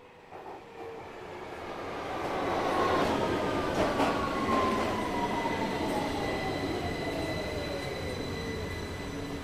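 Subway train running, its rumble swelling over the first few seconds, with a whine that falls steadily in pitch and a couple of sharp clacks around four seconds in.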